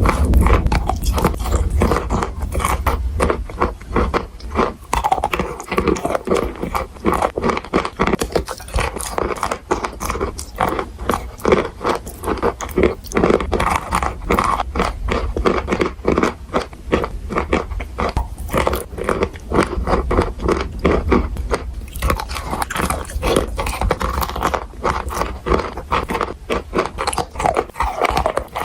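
Someone biting and chewing crunchy edible chalk and clay, in a fast, uneven run of crisp crunches.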